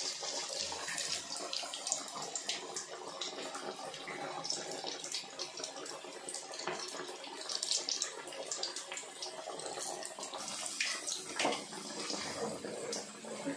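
Chicken vadas (minced chicken masala patties) deep-frying in hot oil: a steady sizzle with many small crackles.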